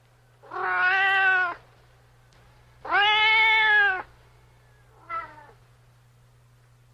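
Domestic cat meowing: two long, loud meows of about a second each, then a short, fainter meow near the end.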